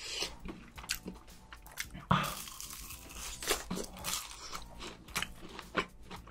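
Close-miked crunching and chewing of a fried rice-cake stick coated in crushed red Cheetos, a run of short crisp crackles, with a short hissing rush about two seconds in.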